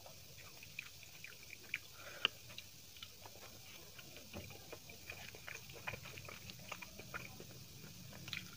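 Quiet eating sounds: chewing and small mouth clicks, with fingers working through chicken biryani rice and chicken on a plate, heard as a scatter of short, sharp ticks.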